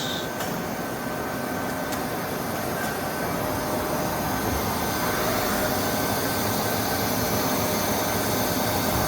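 Shop air compressor running steadily, a constant mechanical drone that grows slightly louder; a faint steady tone joins about halfway through.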